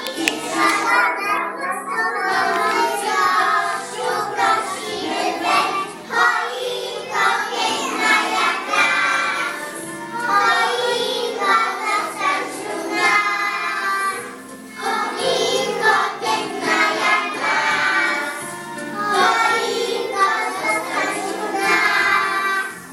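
A group of young children singing a song together in unison, phrase by phrase, over an instrumental accompaniment.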